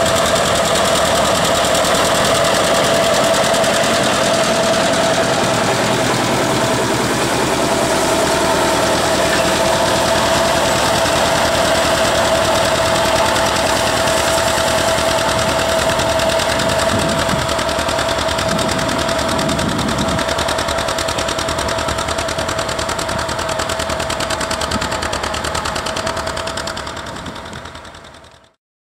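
Two-cylinder John Deere tractor engine running under load while pulling a plow, with the uneven popping exhaust typical of these two-cylinder engines, and a steady whining tone underneath. The sound fades out near the end.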